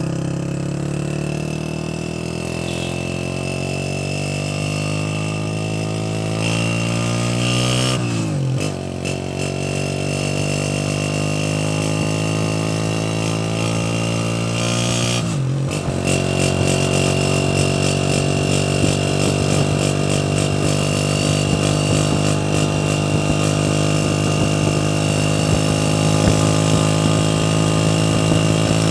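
Honda CG 125's single-cylinder four-stroke engine running through its exhaust silencer, the pitch climbing slowly and dropping sharply about eight seconds in and again about halfway through, as when shifting up through the gears, then holding fairly steady.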